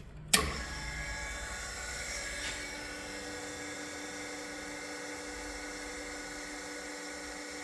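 Harig Super 612 surface grinder switched on with a click, its 1 HP three-phase spindle motor then running with a steady whine. It is nice and quiet, a sign of healthy spindle bearings.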